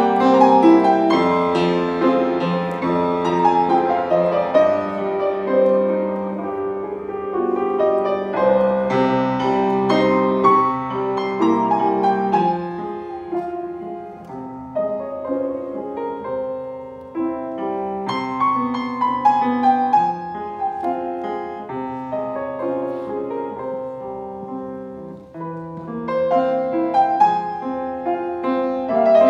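Solo grand piano playing a classical piece in a steady stream of notes, growing softer through the middle and louder again near the end.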